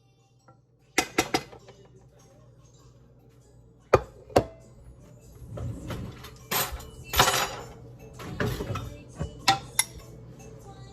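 Dishes and cutlery being handled: a series of sharp knocks and clinks of plates and utensils, with stretches of scraping and clatter in between.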